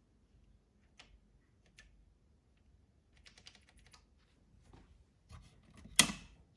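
Computer keyboard keys tapped: scattered single clicks, a quick run of keystrokes a few seconds in, and one loud clack near the end. No drive motor is heard.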